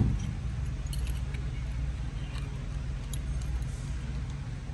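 A door knocks shut at the start, followed by light jingling of a bunch of keys over a steady low hum.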